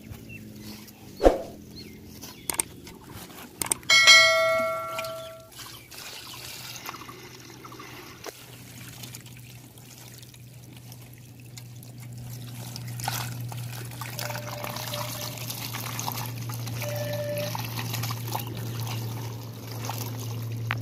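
Water pouring and trickling from the mouth of a tipped earthenware pot onto grass, growing heavier in the second half. About four seconds in there is a single loud ringing strike that fades over about a second and a half.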